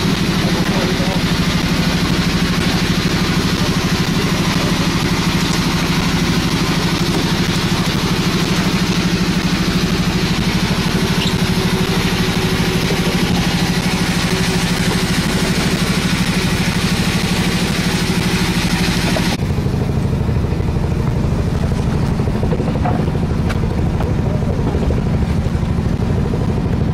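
An engine aboard a fishing boat running steadily at an even pace, a loud low drone with hiss above it. About two-thirds of the way through, the sound turns abruptly duller as the hiss drops away while the drone carries on.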